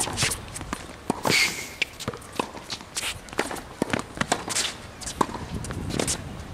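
Tennis rally on a hard court: sharp pops of racket strings striking the ball and ball bounces, mixed with quick footsteps and shoe scuffs on the court surface.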